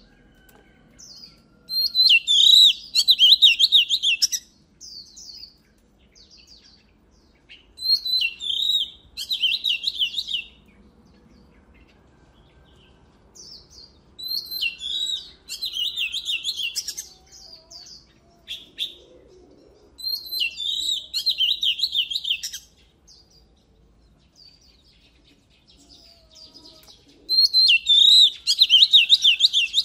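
Oriental magpie-robin singing: five loud song phrases about six seconds apart, each opening with a rising note and running into a rapid string of sharp notes for two to three seconds, with soft short chirps in between.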